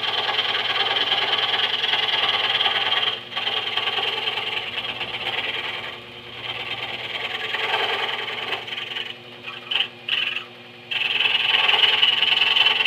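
Harbor Freight scroll saw running, its reciprocating blade cutting through thin wood with a steady buzz over the motor's hum. The cutting noise drops away briefly a few times, most markedly for about two seconds near the end with short spurts, then picks up again.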